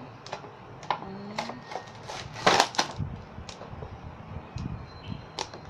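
Scissors snipping and clear plastic doll packaging crackling as it is cut and pulled open: a series of sharp clicks, with a louder crackle about two and a half seconds in.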